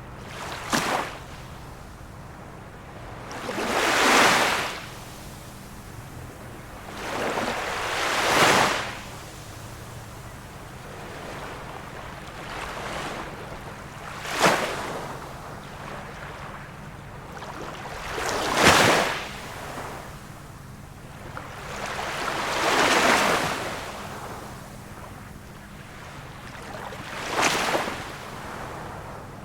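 Small waves of a calm sea washing in one after another, about seven in all, each a hiss that swells and fades every four to five seconds.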